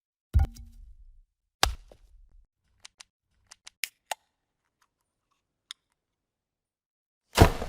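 Short transition sound effects in a row: a sharp hit with a low thump about half a second in, another hit a second later, a scatter of quick clicks and ticks in the middle, and the loudest hit near the end.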